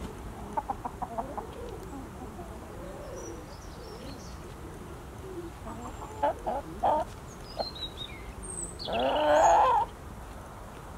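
Domestic chickens clucking as they forage. Bursts of quick short clucks come about half a second in and again past the middle, and a louder drawn-out call about a second long comes near the end.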